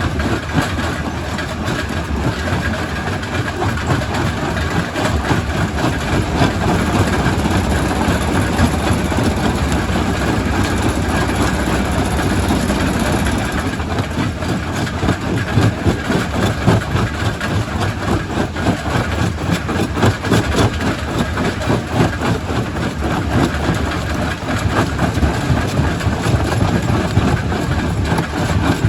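Quarry primary rock crusher running and crushing stone: a steady heavy machine noise under constant knocking and clattering of rock.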